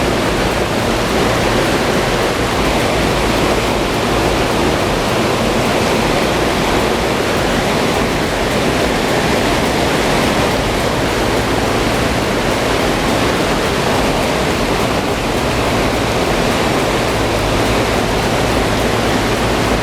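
Bulldozer's diesel engine running steadily, beneath a loud, even rushing noise that stays unchanged throughout.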